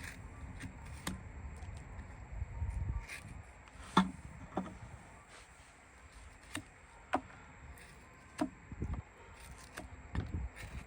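Horse's hoof being trimmed: irregular sharp snaps of hoof horn being cut by a farrier's tools, about ten of them, the loudest about four seconds in, over a low handling rumble.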